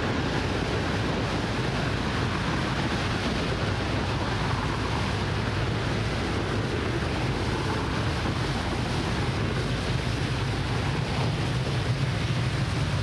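Falcon 9 rocket's nine first-stage Merlin engines firing during ascent: a steady, even rumble with a low hum underneath.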